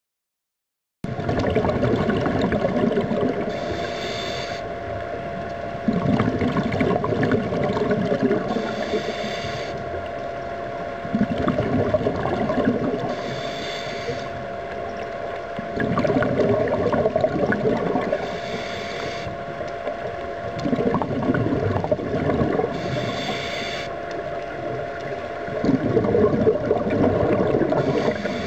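Scuba diver breathing through a regulator underwater: long bubbling exhalations alternating with short hissing inhalations, about one breath every five seconds, over a steady hum. It starts abruptly about a second in.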